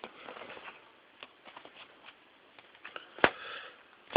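Trading cards being handled and laid down: soft rustling with scattered light clicks, and one sharper click a little past three seconds in.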